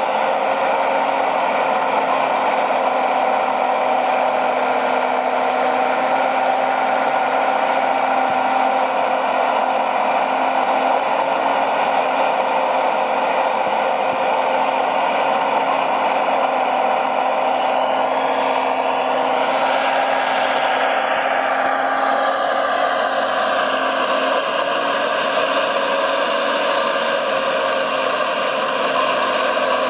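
Electric motors and gearboxes of radio-controlled model construction vehicles whirring steadily, with a whine that falls in pitch about two thirds of the way through and settles lower.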